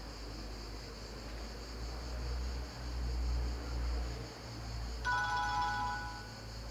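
Nokia N70 mobile phone playing a ringtone through its speaker: a short chiming tone of several steady pitches sounds about five seconds in and stops after just over a second. Before it there is only steady hiss and a low rumble.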